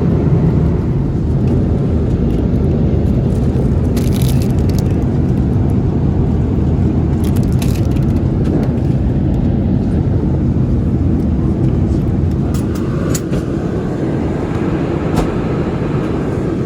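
Steady low rumble of a Boeing 787-8 airliner heard from a window seat inside the cabin: engine and airflow noise, with a few brief rattles, easing slightly in the later seconds.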